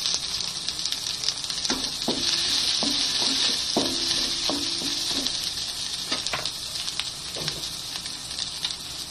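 Garlic and red onion sizzling in hot oil in a stone-coated nonstick wok: a steady frying hiss. A spatula scrapes and taps against the pan now and then as they are stirred.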